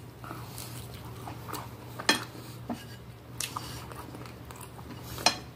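Close-up chewing and mouth sounds of a person eating, with a metal fork clinking sharply against a glass plate several times.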